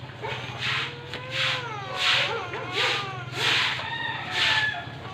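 Paper banknotes rustling as they are counted through by hand, a crisp rustle about every two-thirds of a second. Faint wavering calls sound in the background.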